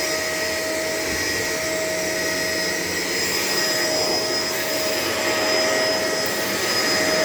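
Shark LA702 vacuum cleaner running steadily, its motor giving a constant airy rush with a thin steady whine over it.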